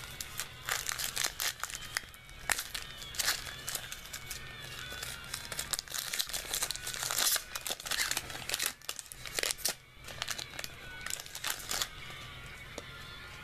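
Foil wrapper of a baseball card pack crinkling and tearing as it is opened by hand, in a run of short crackly bursts that die down near the end.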